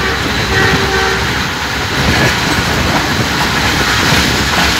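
Train running fast, heard from a carriage at the side window: a steady rumble of wheels on the rails with rushing noise. Some faint steady tones fade out about a second in.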